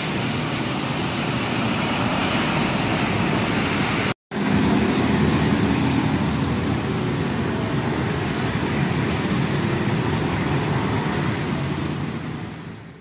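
Steady road traffic noise on a wet street: motorcycles, cars and buses passing in a continuous stream. The sound drops out briefly about four seconds in and fades out near the end.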